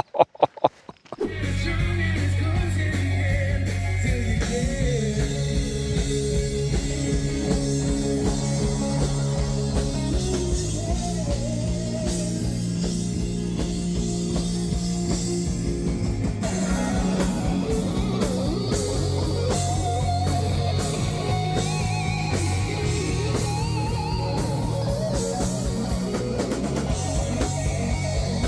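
Rock band playing live, with electric guitar, drum kit and a singing voice. The music starts about a second in.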